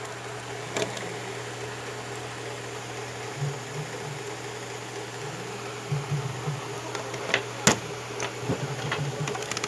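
A steady low hum, like a fan or appliance running, with scattered clicks and taps from a Razer Kraken Pro headset's parts being handled; the sharpest click comes about three quarters of the way through.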